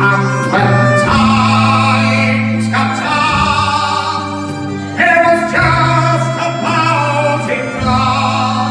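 Live band playing a slow Irish folk ballad: a man singing over strummed acoustic guitar and band accompaniment.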